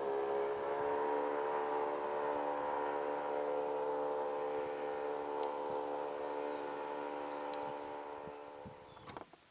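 Bass boat's outboard motor running at speed, a steady engine whine that slowly fades as the boat moves away, gone near the end. A few sharp clicks follow.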